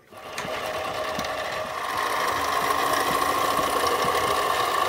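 Central Machinery 7x12 benchtop mini metal lathe switched on and running, its motor and drive spinning up over about two seconds to a steady high whine while facing the end of a steel tube held in the chuck.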